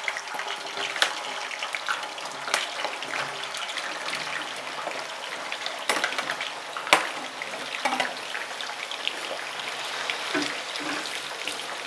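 Sliced potatoes sizzling in hot oil in a frying pan as they are added for frying, a steady hiss. Occasional sharp clicks as the metal slotted spoon knocks against the bowl and pan, the loudest about seven seconds in.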